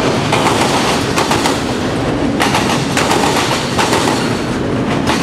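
Autorack freight cars rolling past: a steady, loud rumble of steel wheels on rail, with repeated sharp clicks as the wheels cross rail joints.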